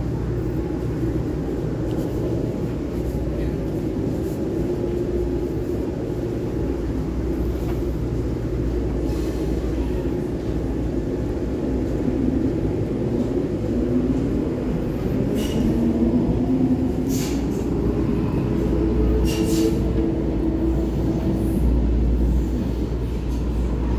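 Vienna U-Bahn SGP Type U11 metro train running slowly through an underground station: a steady low rumble with an electric motor whine that bends up and down in pitch about halfway through. Three short high-pitched noises come near the middle.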